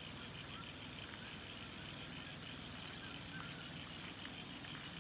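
Floodwater running steadily, a low, even rush of water, with a few faint short chirps over it.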